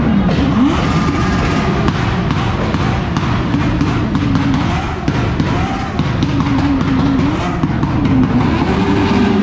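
Motorcycle engines revving: the pitch drops and climbs quickly, then is held high with brief drops. Music with a drum beat plays alongside.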